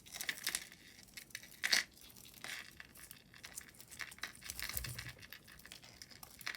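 Costume jewelry clicking and clinking as pieces are handled and sorted, with light rustling; the sharpest click comes a little under two seconds in.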